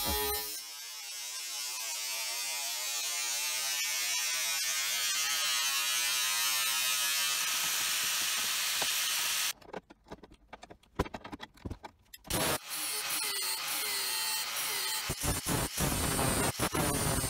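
Makita 115 mm angle grinder running steadily, cutting through a steel motorcycle brake rotor. About nine and a half seconds in it stops abruptly and a few sharp metal clicks and taps follow, then about three seconds later the grinder runs again against the rotor's edge.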